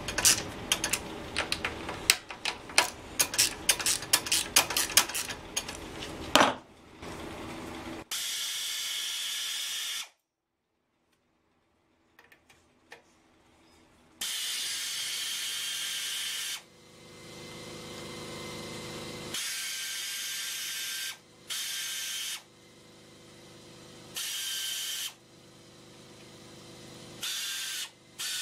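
Gloved hands click and rattle plastic parts of a small engine's air filter housing for the first six seconds or so. Then come repeated spray bursts into the housing, each a steady hiss lasting one to two seconds, with short gaps between them.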